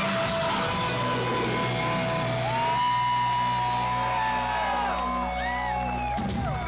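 Hardcore band's electric guitars and bass ringing out on the final chord of a song, with several high held tones that bend and slide in pitch over it. The chord stops abruptly about six seconds in.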